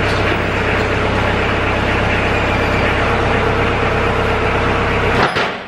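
LS compact tractor's diesel engine running steadily while the loader hydraulics raise the snowplow on its mount; the sound cuts off near the end.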